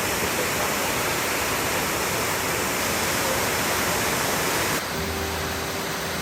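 Waterfall running, a steady, dense rush of falling water. About five seconds in it changes suddenly to music with held notes.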